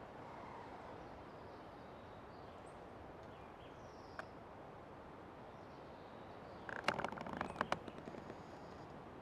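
Old tree trunk creaking as a quick run of dry, irregular crackling clicks for about a second, near the end, over steady forest ambience with a few faint bird chirps.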